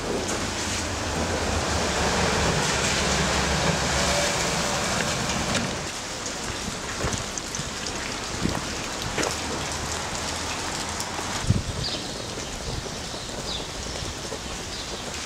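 Heavy rain falling steadily, louder over the first five or six seconds, then softer with scattered drips and taps.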